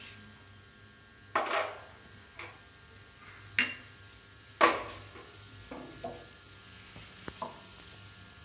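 Scattered clinks and knocks of metal kitchen utensils against a pan and dishes, about half a dozen, each with a short ring, the loudest about halfway through, over a faint steady low hum.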